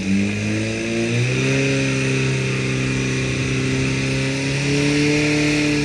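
Portable fire pump's engine revving up over the first second and a half, then running steadily at high revs as it drives water through the attack hoses.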